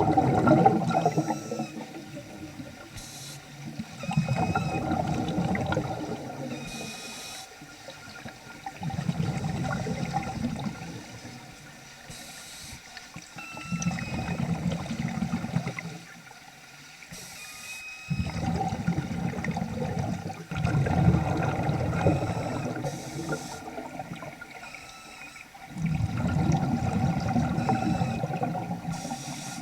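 Underwater breathing through a vintage Nemrod Snark III double-hose scuba regulator: a rushing, bubbling swell every four to five seconds, one per breath, with short high-pitched chirps between them. These are the unusual regulator noises, though the regulator still breathes normally.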